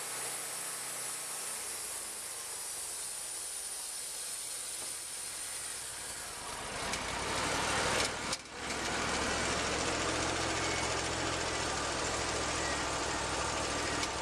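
Wood-Mizer LT40 portable band sawmill running: a steady hiss at first, then about halfway in the engine's hum comes up louder and keeps running steadily, with a brief dip just after.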